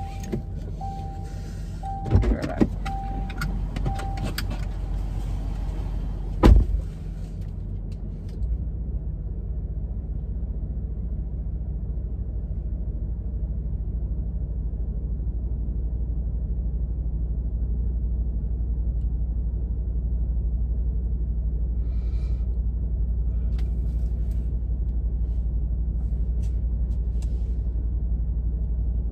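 A car's door-open chime beeps for the first few seconds, with a knock about two seconds in. A car door slams shut about six and a half seconds in, and then a steady low rumble fills the closed cabin.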